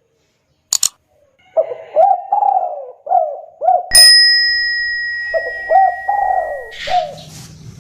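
Spotted dove cooing in two rapid runs of low notes, each note ending in a rising hook. About four seconds in, a bell is struck once; it is the loudest sound and rings on in one clear tone, fading over about three seconds beneath the cooing.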